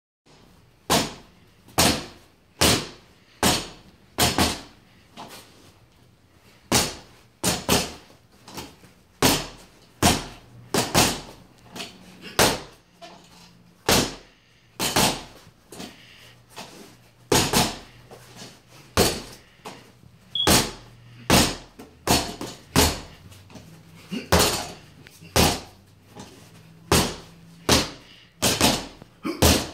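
Punches landing on a free-standing reflex punching bag: sharp smacks, single hits and quick doubles and triples, about one to two a second.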